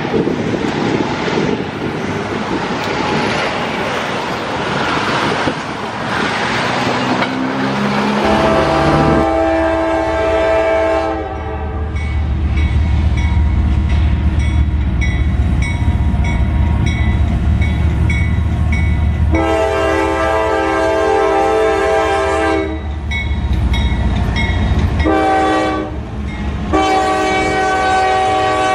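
CSX freight train's GE diesel locomotives passing with a low engine rumble while the lead unit's horn sounds a chord in several long blasts and one short blast. Before the horn starts there is a few seconds of loud rushing noise.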